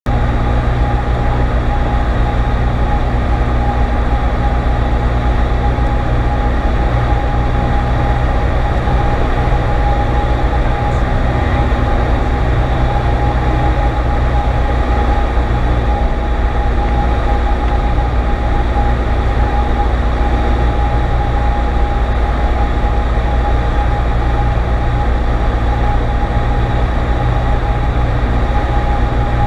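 Cessna 152's Lycoming O-235 four-cylinder engine and propeller running in flight with a steady drone and a thin steady tone above it.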